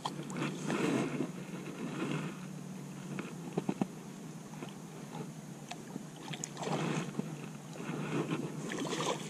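Rustling and handling noise close to the microphone from the angler's jacket sleeve, hands and fishing rod brushing the tall grass, coming in irregular swells, with a few sharp clicks about three and a half seconds in.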